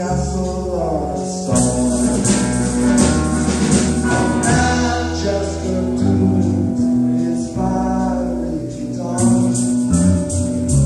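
Live psychedelic rock band playing, with a man singing into a microphone over the band.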